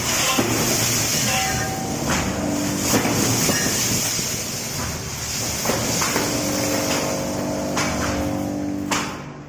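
A machine running steadily, with a rushing hiss over it and a faint low hum, then winding down and stopping near the end.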